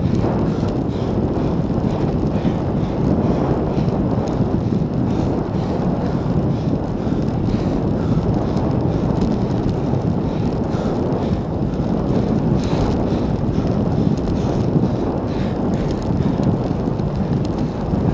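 Wind buffeting the microphone on a road bike riding at about 35 km/h: a loud, steady, low rush of air with a few faint ticks.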